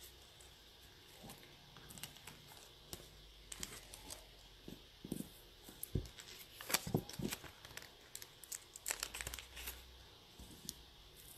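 Faint rustling and scattered small clicks of small objects being handled, busiest in the second half.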